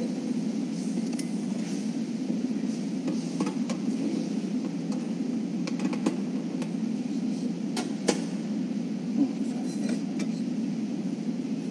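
Small sharp clicks and taps of gold altar vessels (a monstrance and a small metal case) being handled and set down on the altar, a few seconds apart, the loudest about eight seconds in. Under them runs a steady low rumble of room noise.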